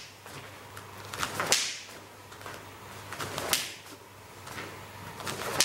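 Three sharp snaps of karate roundhouse kicks, about two seconds apart. Each has a short swish as the leg whips out, then a crack as the kick lands at or near the partner's raised hands.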